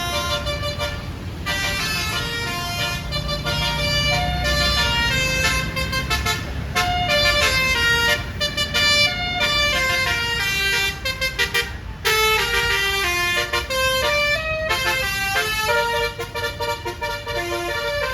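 Bus telolet air horns (Basuri multi-trumpet horn) playing a quick tune, note after note, with a short break about twelve seconds in, over a low engine rumble.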